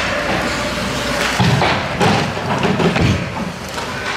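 Youth ice hockey play: several dull thuds about a second and a half, two and three seconds in, among sharp clacks of sticks and puck, over a steady low rumble.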